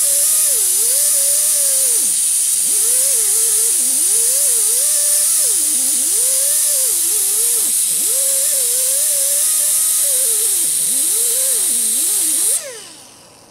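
Right-angle air die grinder with an abrasive disc grinding a cast vise part: a loud, steady air hiss with a motor whine whose pitch repeatedly sags and recovers as the disc is pressed into the work. Near the end the air cuts off and the grinder winds down.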